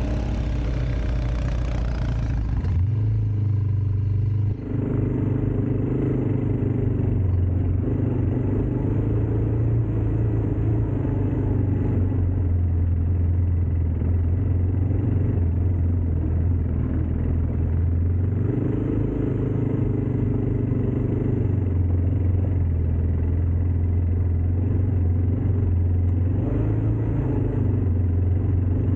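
ATV engine running under way, its low hum stepping up and down in pitch several times as the throttle changes. There is a rushing hiss for the first couple of seconds.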